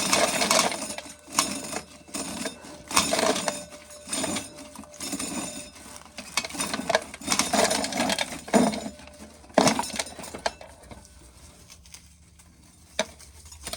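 Dried corn being shelled, kernels clicking and rattling as they fall into a container in irregular bursts. The rattling thins out about three-quarters of the way through.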